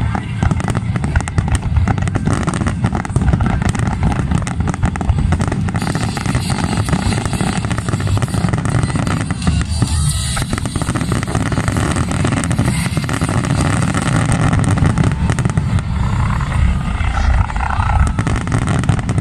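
A dense barrage of fireworks going off, a continuous rumble of booms with crackling, and music faint underneath.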